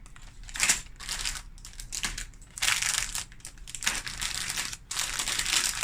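Plastic Lego parts bags crinkling as they are handled and shuffled, in irregular rustling bursts.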